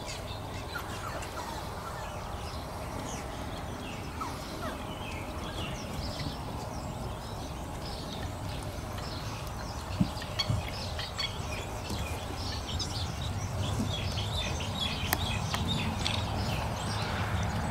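A litter of six-week-old Thai Ridgeback puppies squeaking and yipping as they play, with many short high squeaks that grow busier in the last few seconds. A steady low hum runs underneath, and there is a single knock about ten seconds in.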